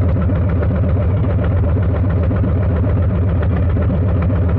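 Harley-Davidson Milwaukee-Eight 117 V-twin idling steadily in neutral through a Two Brothers 2-into-1 aftermarket exhaust. The sound is a loud, even low beat of exhaust pulses.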